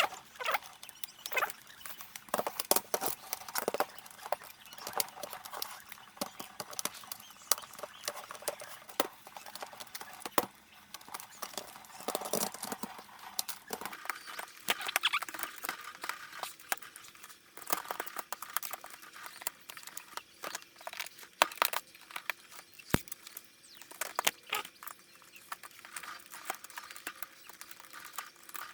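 Plastic snap clips of a laptop's bottom case clicking and popping as a plastic card is slid along the seam to pry the case open, with irregular clicks and light scraping throughout.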